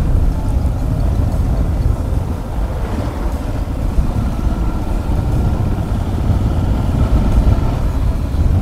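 Suzuki DR650's single-cylinder engine running at low speed, a steady low rumble.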